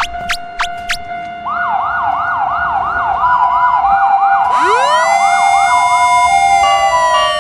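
Synthesized siren sound effect: a run of short rising whoops about three a second, joined about halfway through by a long upward-gliding wail that levels off, with short beeps over a steady tone; it stops near the end.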